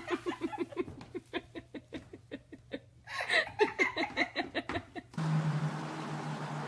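A person laughing hard in quick, rapid pulses, with a second louder burst of laughter about three seconds in. About five seconds in the laughter cuts off suddenly and a steady low hum takes over.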